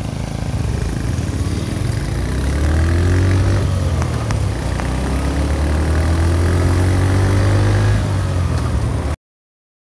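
Honda Magna 50's small single-cylinder four-stroke engine pulling away, revving up twice in rising pitch as the bike gathers speed. The sound cuts off suddenly near the end.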